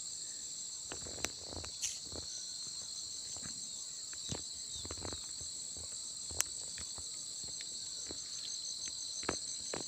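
Steady chorus of insects in the forest: a continuous high buzz with a fast, pulsing trill inside it. Faint scattered knocks and clicks sound under it, with one sharp click about six seconds in.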